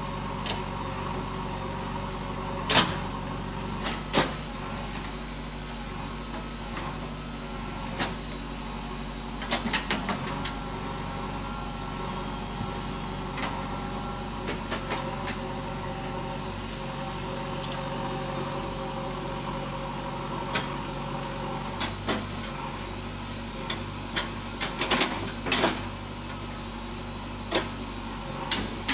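JCB backhoe loader's diesel engine running steadily as it digs, with scattered knocks and clatter from the bucket working stony earth, loudest a few seconds in, around ten seconds and again near the end.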